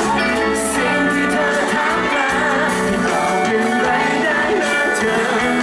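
A live pop band: a male singer singing a Thai pop ballad into a microphone over bass guitar and electric guitar.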